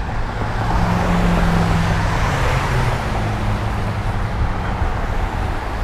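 Road traffic passing close by: a motor vehicle's engine and tyres swell past about one to three seconds in, over a steady low rumble.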